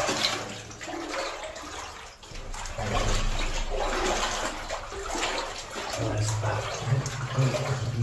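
Boots wading through shallow water, sloshing and splashing with each step.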